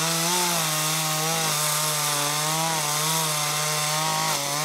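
Gasoline chainsaw running at full throttle as it rips lengthwise through an Osage orange log, a steady engine note whose pitch wavers slightly as the chain bites into the wood.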